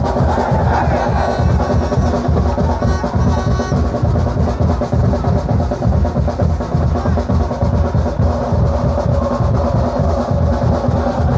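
Supporters' drums beating a fast, continuous roll.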